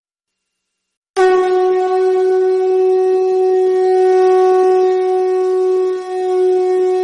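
Conch shell (shankh) blown in one long, steady, horn-like note that starts abruptly about a second in and dips briefly near the end.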